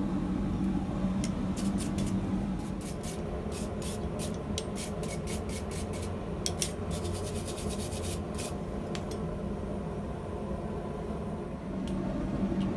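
Metal scraping on steel in many short, irregular strokes over a steady low hum; the strokes stop about three-quarters of the way through.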